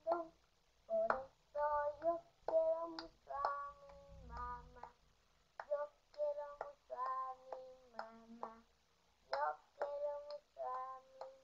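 A young girl singing in short phrases with brief pauses between them, some notes held steady.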